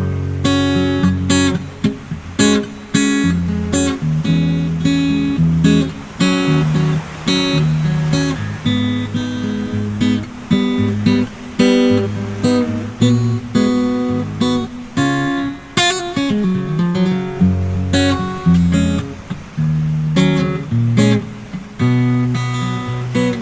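Background music: acoustic guitar strumming and picking chords at a steady pace.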